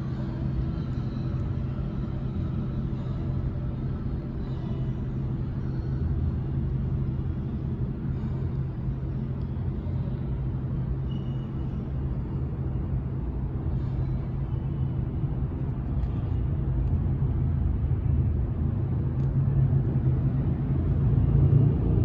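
New York City subway train rumbling in the tunnel, heard from the station platform as a steady low rumble with a constant hum, growing louder over the last few seconds.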